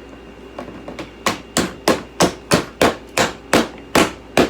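Hammering: a steady run of about a dozen sharp strikes, roughly three a second, beginning about a second in.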